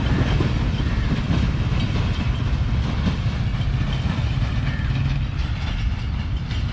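Freight wagons of a coal train rolling past on the main line, a steady rumble of steel wheels on the rails.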